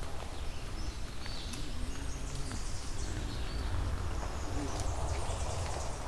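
Outdoor woods ambience: a steady low rumble with scattered high bird chirps over it.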